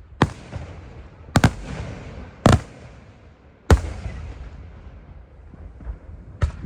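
Aerial firework shells bursting in a display: about five loud sharp bangs, one a quick double, each followed by a fading rumble and crackle.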